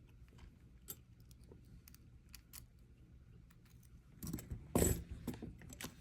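Scattered light clicks of small pieces of jewelry being handled, then a louder rustle of a small plastic bag about four seconds in.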